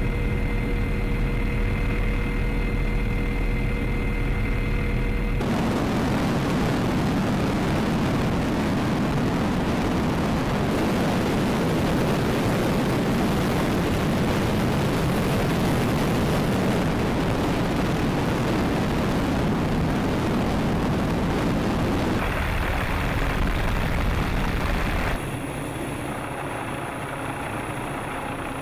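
MD 530F Cayuse Warrior helicopter: steady turbine and rotor drone with a high whine inside the cockpit in flight. After about five seconds it changes to a louder, rougher rush of helicopter noise, and a few seconds before the end it drops to a quieter steady drone.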